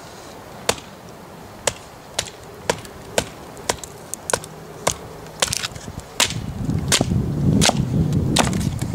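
Wooden batoning stick striking the spine of a UST Paraknife 4.0 fixed-blade knife, driving it down through a pine log: sharp knocks about every half second. In the last few seconds a louder, rougher rustling noise joins in as the log splits apart and the pieces are handled.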